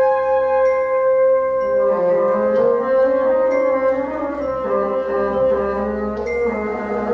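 Live orchestra playing classical music: a long held high note, with more instruments coming in beneath it about two seconds in.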